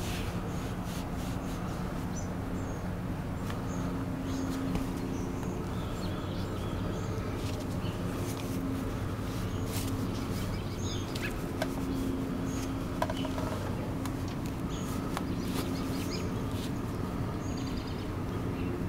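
Small birds chirping now and then over a steady low mechanical hum, with a few faint clicks.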